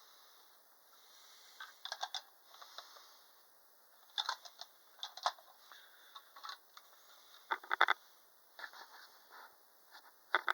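Scattered light clicks and taps of objects being handled, in small clusters every second or two.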